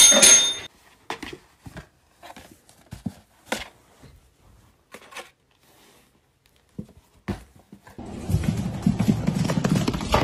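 A desk service bell rung once, ringing out briefly. It is followed by scattered faint taps and rustles. About eight seconds in, a loud, rough, continuous noise takes over.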